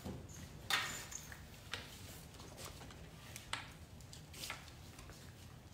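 Faint, scattered light clicks and rustles of handling and movement, including a bicycle helmet's chin-strap buckle being fastened.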